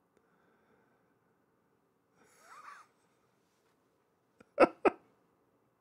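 A man's short laugh: two quick voiced bursts close together, a little over halfway through, with a soft breath through the nose a couple of seconds before.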